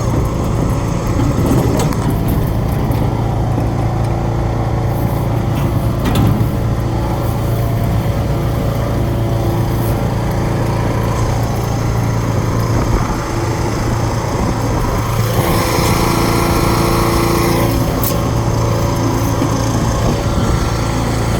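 Riding lawnmower engine running steadily while towing. For about two seconds, roughly three quarters of the way through, the sound turns harsher and brighter, then settles back.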